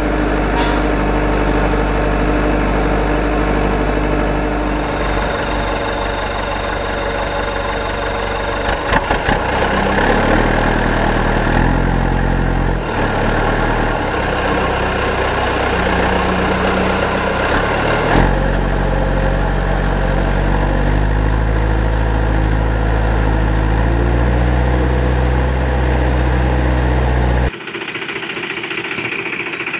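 Engine sound of a running heavy vehicle, steady, with its low hum shifting in pitch every few seconds. Near the end it cuts abruptly to a thinner, quieter sound.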